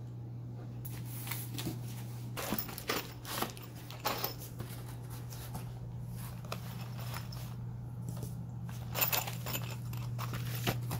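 Crib parts and packaging being handled: scattered rustles, crinkles and light clicks of cardboard, plastic and a blister pack of metal bolts, over a steady low hum.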